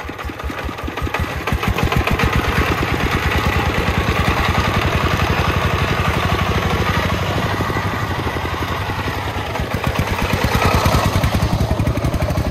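Single-cylinder diesel engine of a công nông, a homemade three-wheeled truck, running with a rapid, even chugging. It grows louder about two seconds in, eases slightly later on, and picks up again near the end.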